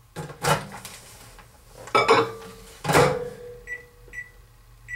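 Three knocks of hard objects being handled and set down, the last ringing briefly, then three short high microwave keypad beeps about half a second apart near the end as the heating time is keyed in.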